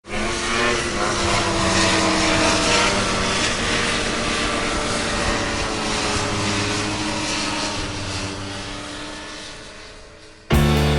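Snowmobile engine running hard as a machine races by, its pitch shifting, then fading into the distance. Music cuts in suddenly near the end.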